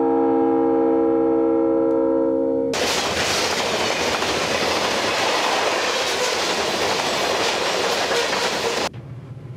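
A locomotive's air horn holding a steady chord, cut off abruptly about two and a half seconds in by the loud steady rumble and wheel clatter of a long string of covered hopper cars rolling past on the rails. The train noise stops suddenly near the end.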